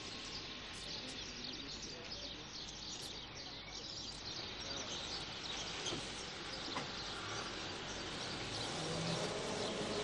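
Faint outdoor noise with a lorry's engine running as it drives up and stops, growing slightly louder near the end, and distant voices.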